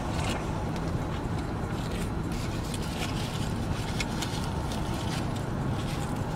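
Steady low car-cabin rumble with scattered soft clicks of chewing and mouth noises as a burger is eaten.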